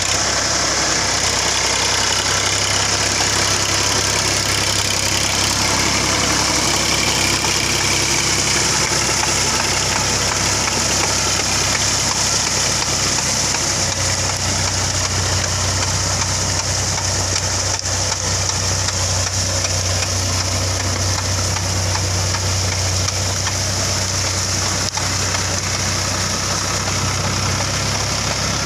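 Massey Ferguson 7250 DI tractor's diesel engine running steadily under load while it drives a rotary tiller through flooded paddy mud. Its tone shifts about halfway through, and a steady high hiss runs over it.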